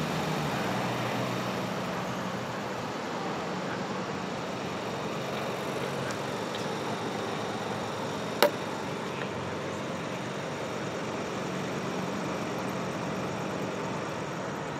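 Steady street traffic noise of cars going by. One sharp click comes about halfway through.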